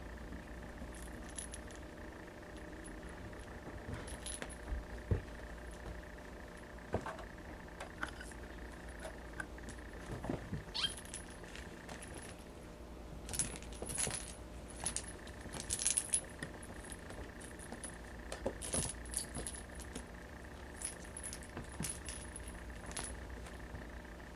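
Small jingle-bell toy ball tinkling and clicking irregularly as kittens bat and chase it, with a busier flurry of jingles around the middle.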